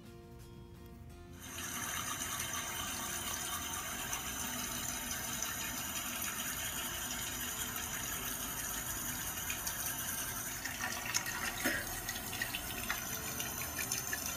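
Tap water running into a sink, a steady rushing hiss that starts about a second and a half in and cuts off abruptly at the end, with a few light clicks near the end.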